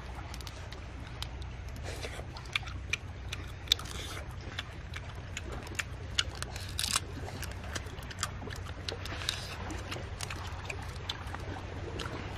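Scattered small clicks and crackles of cooked sand lobster shells being peeled apart and chewed, irregular and a few a second, over a steady low background rumble.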